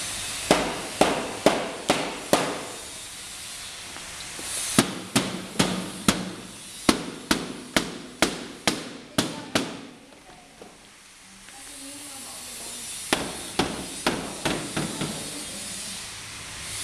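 Hammer blows on a bamboo bar frame, about two a second, in three runs: a short run at the start, a longer run of about a dozen in the middle, and a few more near the end, over a steady background hiss.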